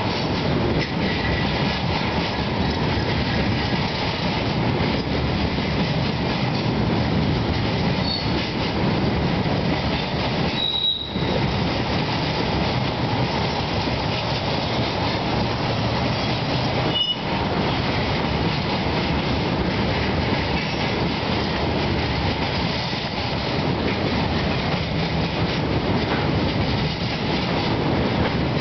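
Freight train of flatcars loaded with steel slabs rolling past at speed: a loud, steady rumble and rattle of steel wheels on rail, with a few brief high wheel squeals.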